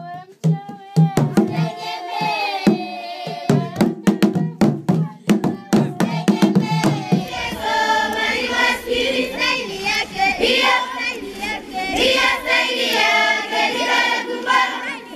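Drumming and sharp handclaps under a singing voice for about the first seven seconds. Then the drum stops and a large choir of children sings, many voices together.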